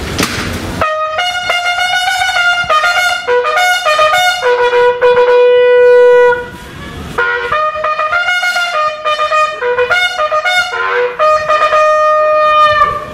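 Bugle sounding a salute call for a guard of honour: a run of separate notes, a long held note, a short pause, then another run of notes. It starts about a second in, after a brief burst of noise.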